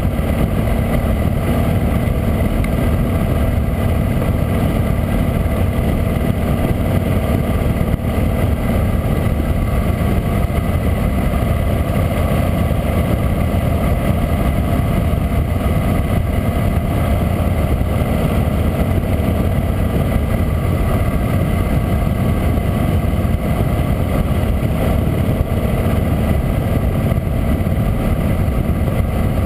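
Harley-Davidson V-twin motorcycle cruising steadily at road speed, heard from the rider's seat: a low, even engine drone mixed with heavy wind rush on the helmet-mounted camera.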